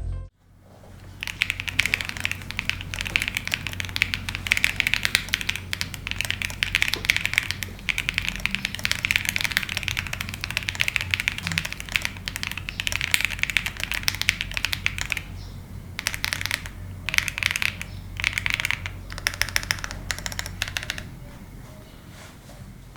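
Typing on a Trashbin40 40% mechanical keyboard with an FR4 plate, foam-filled case and pre-lubed Bsun Latte linear switches: a fast, continuous run of key presses, then a few shorter bursts of typing with pauses in the last third.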